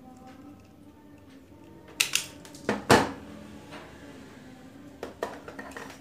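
Sharp clicks and clacks of a hand-squeezed automatic wire stripper stripping the end of a wire and being put down on the table: four loud snaps about two to three seconds in, then two lighter clicks near the end.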